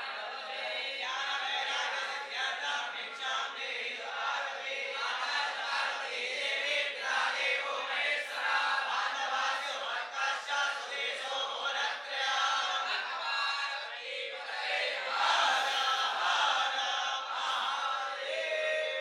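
A group of young Vedic students chanting a Sanskrit mantra together in a loud, continuous chorus.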